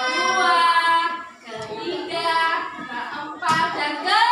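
Young children singing a song together with a woman's voice, in long held notes with short breaks between phrases.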